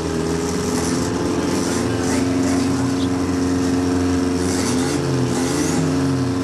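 Racing car engine idling steadily in the paddock. In the last couple of seconds its pitch rises and falls a few times.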